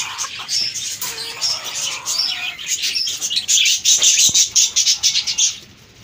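A colony of small caged birds, budgies and finches, chirping and chattering in a dense chorus. It grows louder a little past halfway and falls away shortly before the end.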